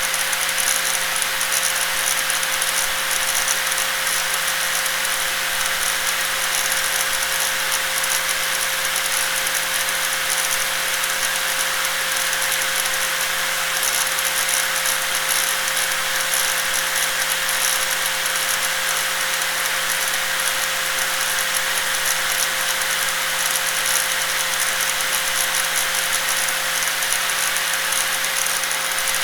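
Electric angle grinder running steadily, a constant high whine over a rattling hiss.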